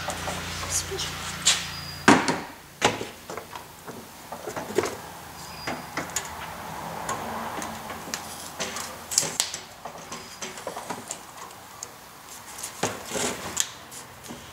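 A new Spectra Premium radiator being slid and worked down into a pickup's radiator support, with scattered knocks, clicks and scrapes as it bumps against the surrounding parts.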